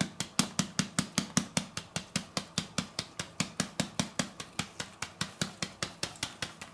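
Steady rapid tapping, about five even taps a second, as a paper flour bag is tapped to shake flour out in a slow trickle into a stainless steel bowl.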